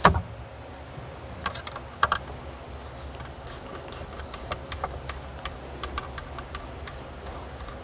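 Scattered light clicks and taps of stainless steel bolts and small hardware being handled and fitted by hand into the textured cubby panels, some in quick pairs. A faint low hum runs underneath.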